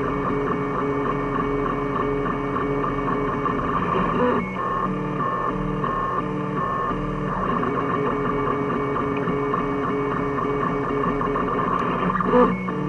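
Home-built 3D printer's stepper motors whining while printing, a cluster of steady tones that jump between pitches every half second or so as the head changes moves. A brief louder burst comes about four seconds in and again near the end.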